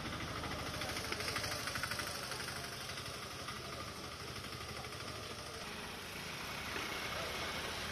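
An engine running steadily at idle, with a fast, even pulse.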